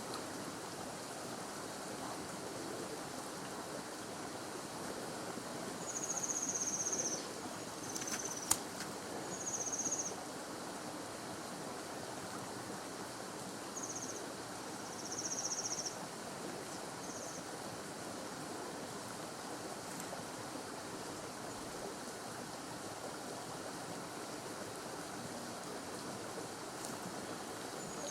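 Outdoor ambience: a steady rushing hiss, with several short, high buzzing calls scattered through it and a single sharp click about eight seconds in.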